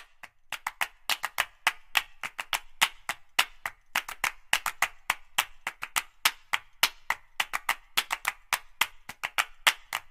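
Background music driven by handclaps and wood-block-like percussion, with sharp, quick hits several times a second.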